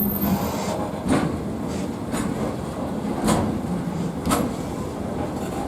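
Freight train wagons rolling slowly past over a steady rumble, their wheels knocking on the track about once a second.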